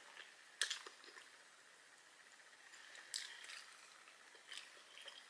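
Faint mouth sounds of someone chewing a sausage, egg and cheese sandwich: a few soft, wet smacks over quiet room tone.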